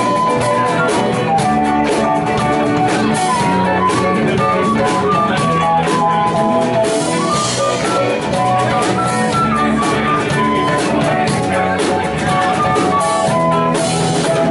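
A live band playing with amplified electric guitar, bass guitar and drum kit, with a melody line running over the groove.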